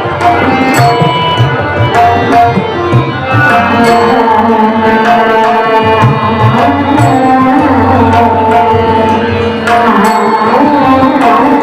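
Tabla playing a steady rhythm of deep and sharp strokes under held melodic notes: the instrumental accompaniment of a Marathi bhajan.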